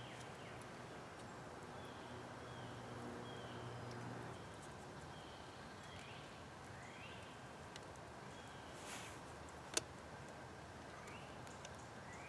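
Quiet woodland ambience: a bird giving short chirps every second or two, over a faint low hum during the first four seconds. A single sharp click comes about ten seconds in.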